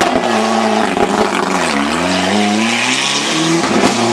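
Ford Sierra Cosworth rally car's turbocharged four-cylinder engine under load. The revs fall to a low point about halfway through, then climb steadily as the car accelerates, with a gear change near the end.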